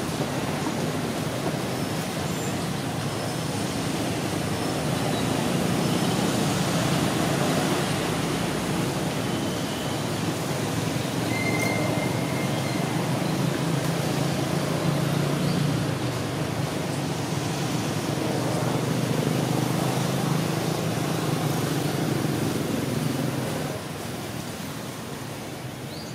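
Steady low rumbling outdoor background noise that swells and eases slowly and drops off near the end, with one brief high chirp about halfway through.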